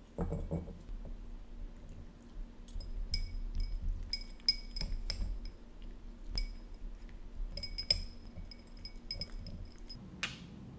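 Dry kibble clinking in a small ceramic dish, many short, light ringing clinks as a chihuahua puppy eats from it. A brief kiss near the end.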